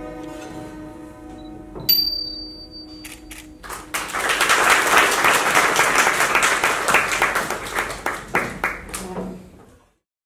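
A Thai classical ensemble of hammered dulcimers (khim) and xylophone lets its final notes ring out, with a single bright metallic strike about two seconds in. Then the audience applauds for about six seconds and fades out near the end.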